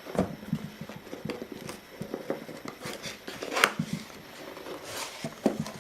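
Handling of a product box and its contents: scattered light knocks, taps and rustles, with a louder brief rustle or scrape about three and a half seconds in.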